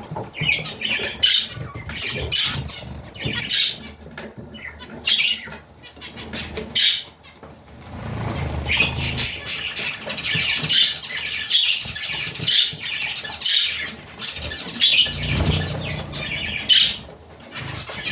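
Budgerigars chattering, a steady run of short, high chirps and squawks that grows busier about halfway through.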